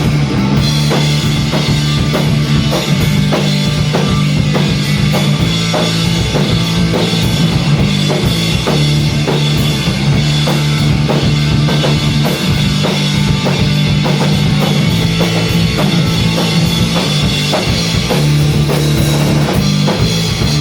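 Punk rock band playing an instrumental passage: distorted electric guitars and bass over fast, even drum beats, with no singing, cutting off abruptly at the end as the song finishes.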